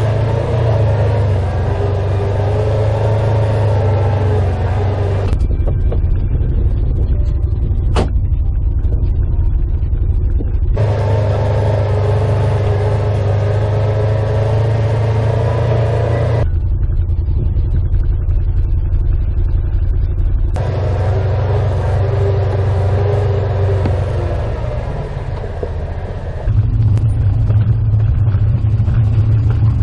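Side-by-side UTVs running as they climb a steep rocky trail, a steady low rumble throughout. The sound changes abruptly every five or six seconds between clips, and there is a single sharp click about eight seconds in.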